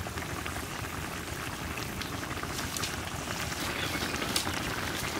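Fish curry simmering in a large pot, the gravy bubbling with small scattered pops over a steady low rumble.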